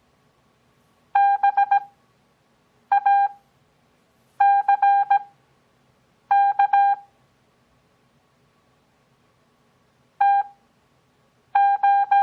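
Morse code practice tone: a single-pitched beep keyed in quick dits and dahs. The characters are sent fast (17 words per minute) with long gaps between them (Farnsworth spacing, 6 words per minute overall), spelling out a mock on-air contact between two stations. Six characters are heard, with a longer pause of about three seconds before the last two.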